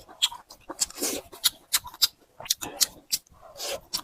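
Close-miked chewing of flat noodles: an irregular run of short, wet mouth clicks and smacks, a few a second.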